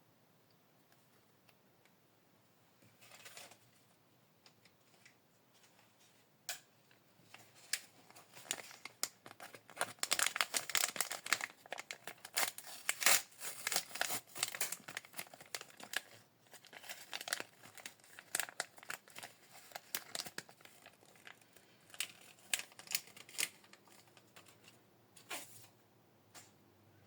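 Thin plastic packaging crinkling and tearing as a miniature collectible is unwrapped by hand. The crackling starts a few seconds in, is busiest in the middle, and thins to scattered rustles and clicks near the end.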